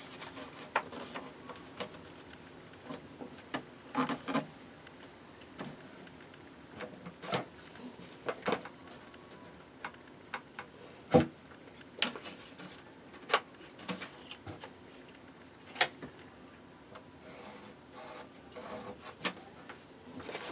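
Wooden boards of a box being handled: scattered knocks and taps of wood on wood, the loudest a little past halfway, with soft rubbing of hands and paper on the boards between them.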